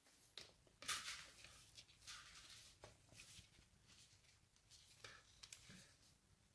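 Near silence with a few faint clicks and rustles from gloved hands handling a DT830D digital multimeter: its rotary selector dial is turned and its test probes are set against a phone battery's contacts. The loudest click comes about a second in.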